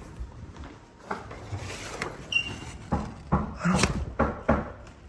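Several irregular knocks and bumps, like a door being handled. There is a brief high squeak about two seconds in.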